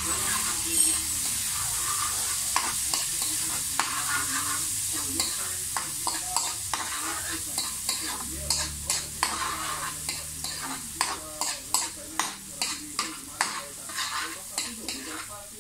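Food sizzling in hot oil in a wok while a spatula stirs it, with frequent scrapes and taps of the spatula against the pan, coming more often in the second half.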